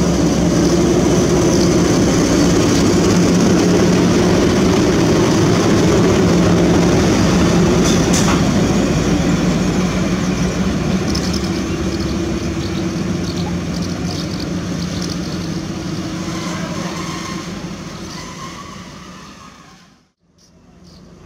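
SM42 diesel shunting locomotive's eight-cylinder engine running with a steady, loud hum as it passes close by, then fading as the locomotive moves away. The sound drops out briefly near the end.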